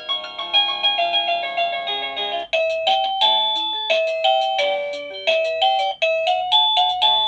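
Wireless doorbell receiver playing electronic melody chimes through its small speaker. The tune breaks off and a new one starts about two and a half seconds in and again about six seconds in, as the chime setting is stepped through.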